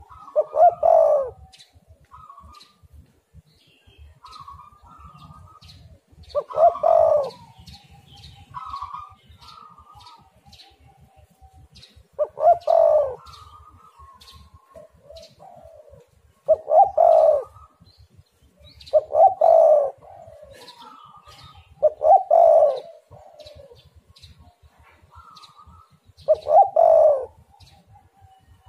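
Spotted dove cooing over and over: seven loud phrases of low, rolling coos spaced about three to five seconds apart. Fainter, higher bird calls come between the phrases.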